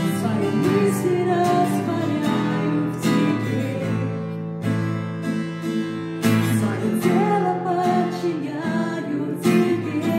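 Acoustic guitar strummed, with the strongest strums about every one and a half seconds, under a woman singing a worship-song melody.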